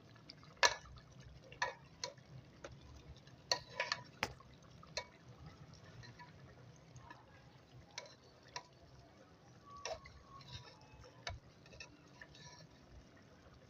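About a dozen scattered sharp clicks and taps at irregular intervals from cooking at the pot, the loudest less than a second in and a quick cluster around four seconds in, over a faint steady low hum.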